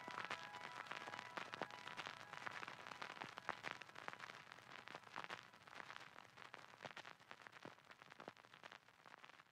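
Faint, irregular crackling and popping that slowly fades away.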